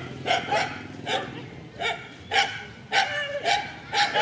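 Dogs barking and yelping in a string of short, sharp barks, about two a second.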